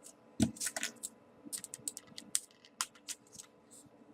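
Small folded paper origami units being handled and pushed into place, giving a scatter of short, crisp paper crackles and clicks, the loudest with a soft thump about half a second in.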